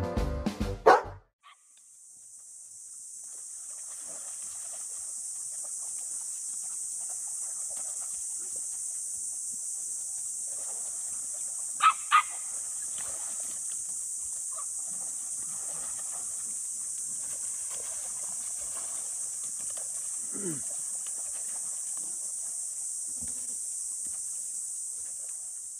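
A dog's bark, cut off within the first second, then a steady high-pitched hiss with faint rustling beneath it. About halfway through come two sharp clicks in quick succession, and later a brief low call that falls in pitch.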